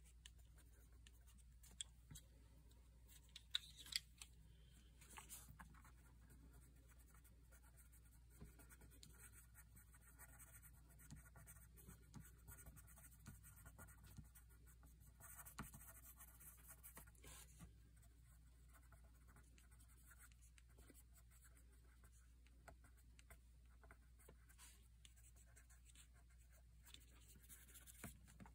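Faint scratching of a watercolor pencil on paper as it colours in, in short strokes, with a few sharper clicks, the loudest about four seconds in.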